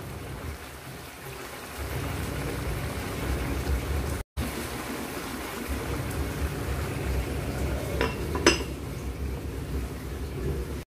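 Squid adobo simmering in a pot, its sauce nearly cooked down: a steady bubbling hiss that grows louder after about two seconds. Two light clinks come near the end as the glass pot lid is handled.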